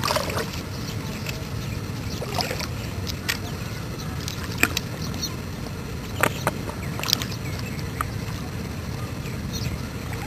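Footsteps wading through shallow water, a steady sloshing with a few sharper splashes every second or two.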